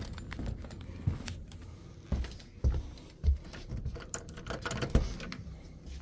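Footsteps and handling noises while walking: several low thumps at uneven intervals with a scatter of small clicks and rattles between them.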